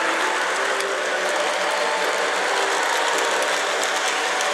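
Model train running along the layout's track: a steady mechanical whir of wheels and motor gearing, with faint fine ticking over it.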